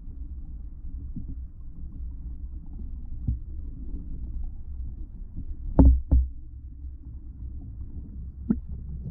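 Low, muffled underwater rumble picked up by a submerged action camera, broken by knocks as an eel bumps and mouths the camera housing: two loud knocks in quick succession about six seconds in, with lighter ones around three seconds and near the end.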